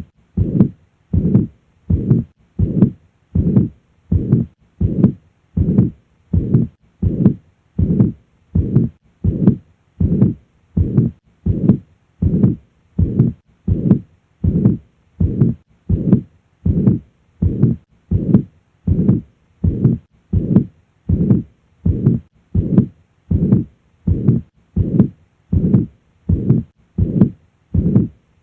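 Heart sounds heard at the cardiac apex with the murmur of mitral regurgitation, the pansystolic murmur of blood leaking back through the mitral valve, repeating with every beat. The heartbeat is steady and regular, at roughly three beats every two seconds.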